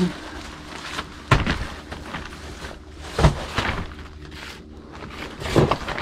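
A person crawling on hands and knees over plastic vapor-barrier sheeting: the plastic rustles and crinkles under him, with three heavier thumps about two seconds apart as knees and hands come down.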